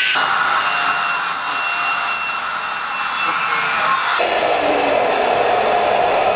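DeWalt abrasive chop saw cutting through galvanized steel tubing: a loud, steady grinding screech with high ringing tones over it. About four seconds in the sound changes to a duller, lower noise with a faint falling whine.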